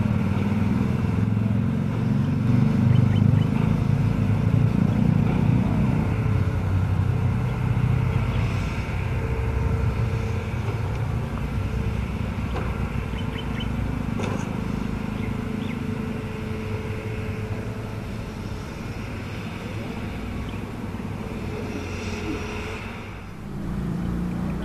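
Hitachi hydraulic excavator's diesel engine running under load as its bucket pushes bamboo poles into the ground. It is loudest in the first six seconds or so, then eases off, with a faint steady whine over the engine.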